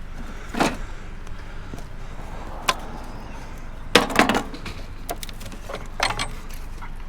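Scrap items being handled: a string of sharp knocks and clanks, with a quick cluster of several about halfway through, over a steady low rumble.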